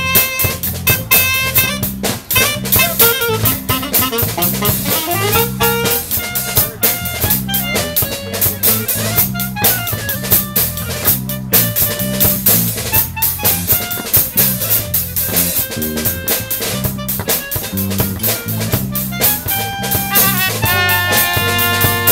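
Live brass band (saxophones, trombone, trumpet and drum kit) playing a New Orleans-style brass-band groove: a steady drum beat and a repeating bass line under horn riffs, with the horns moving into long held notes near the end.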